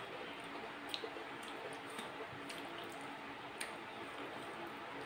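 Soft squishes and scattered small sharp clicks as fingers mix and gather rice and fried vegetables on a steel plate.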